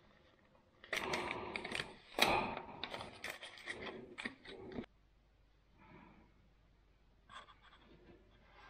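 Paper banknotes being handled and rubbed between the fingers, a dense run of crinkles and crackles that stops abruptly about five seconds in. After it come a few faint scratches of a pencil on paper.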